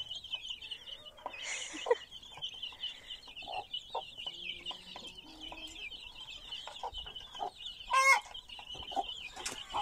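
A brood of chicks peeping in a steady, high chorus, with short chicken clucks scattered through and a louder call about eight seconds in.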